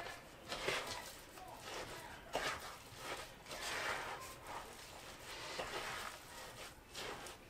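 Spoon stirring stiff, oat-filled cookie dough by hand in a mixing bowl: faint, irregular scraping swishes through the dough, about one a second.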